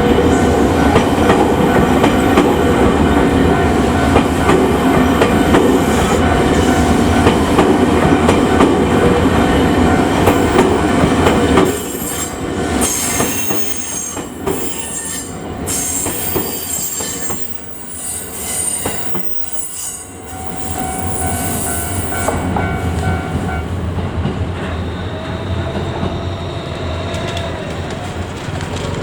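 A train of 209-series EMU cars hauled by an EF64 electric locomotive rolls through a level crossing, its wheels clacking and squealing, loud for about the first twelve seconds before it clears. A steady level-crossing warning tone keeps sounding and stops a few seconds before the end.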